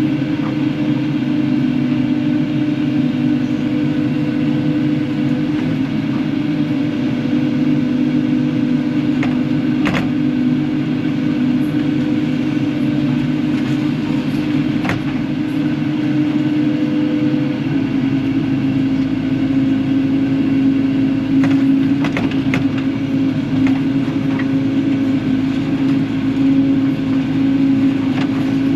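Kubota KX080-4 excavator's diesel engine running steadily under work, its note shifting slightly about two-thirds of the way through. A few sharp clanks sound over it.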